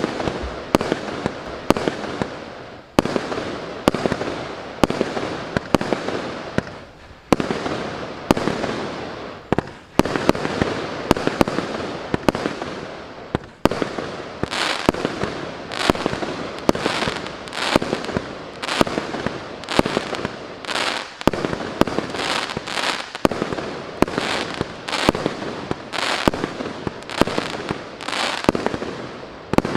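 A 49-shot, 1-inch consumer firework cake (GP506 Soccer Game) firing shot after shot: sharp reports about one to two a second, with dense hissing and crackling between them.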